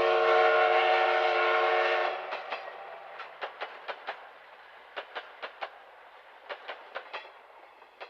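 Train sound: a held, horn-like chord for about two seconds, then scattered clicks like wheels on rail joints, fading away.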